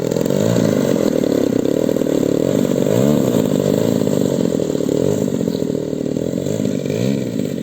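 Engine of a radio-controlled Hawker Hurricane scale model running steadily, with small rises and falls in pitch.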